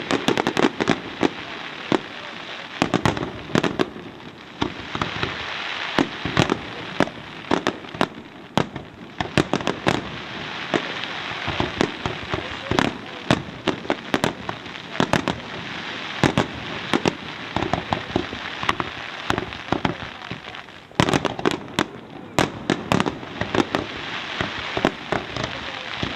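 Pains Fireworks display: aerial shells bursting in rapid, continuous succession, sharp bangs one after another over a steady crackle. The bangs come thickest just after the start and again from about 21 seconds in.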